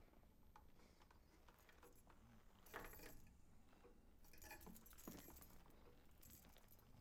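A bunch of keys jangling faintly, with clusters of small metal clinks about three seconds in and again around five seconds.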